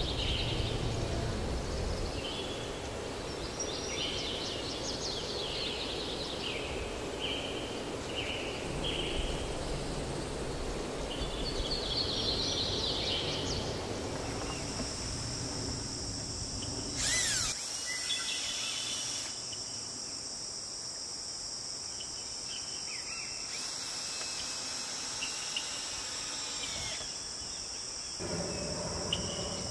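Birds chirping in short calls through the first half, then a steady high insect trill, with one brief louder noise just past the middle.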